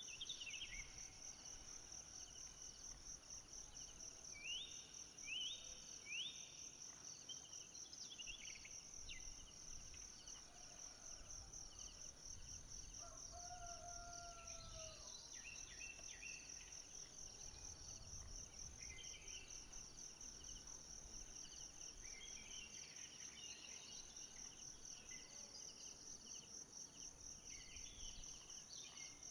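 Tropical forest ambience: a steady, high, rapidly pulsing insect trill, with scattered bird chirps over it, including three quick rising calls in a row about five seconds in and a lower drawn-out call about halfway.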